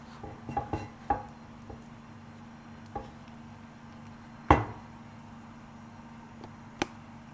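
Silicone spatula knocking and tapping against a nonstick frying pan while a crepe is folded: a quick cluster of knocks in the first second, then single knocks, the loudest about four and a half seconds in. A steady low hum runs underneath.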